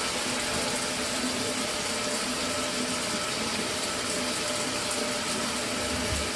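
Mira electric shower running after its solenoid valve was replaced, water flowing steadily from the showerhead with a faint steady hum from the unit. The flow holds without cutting out.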